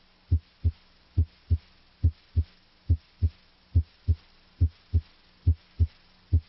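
Normal heart sounds heard through a stethoscope diaphragm at the cardiac apex (mitral area): a steady lub-dub of S1 and S2, a pair of short low thumps about seventy times a minute. At this site S1 is usually louder than S2.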